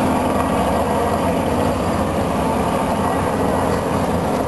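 Two propeller aircraft flying past overhead, their engines making a steady drone.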